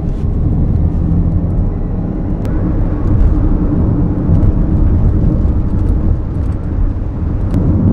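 A car being driven, heard from inside the cabin: a loud, steady low rumble of engine and road noise.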